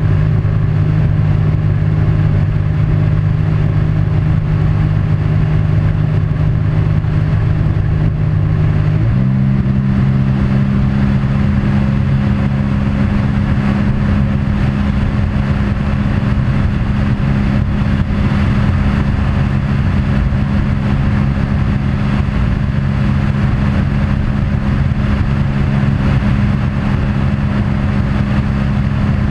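Engine running steadily. About nine seconds in its pitch steps up abruptly as it is throttled up, then holds at the higher speed.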